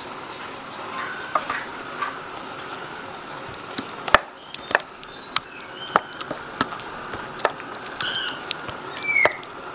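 A pestle stirring and mashing steamed pumpkin mash in a stainless steel bowl: a steady scraping with irregular sharp knocks of the pestle against the metal bowl, coming several a second from about four seconds in.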